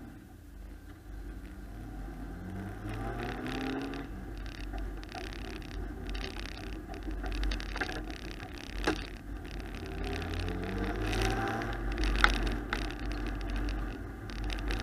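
Freshly rebuilt Nissan VG33E V6 in an S12 200SX race car, heard from inside the stripped cabin, pulling away down the street. Its pitch rises as it accelerates about three seconds in and again about ten seconds in, over a steady low rumble, with a couple of sharp clicks.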